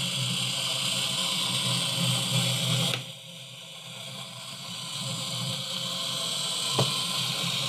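Steady hiss with a low hum underneath, background noise with no distinct event. It drops suddenly about three seconds in and slowly builds back up.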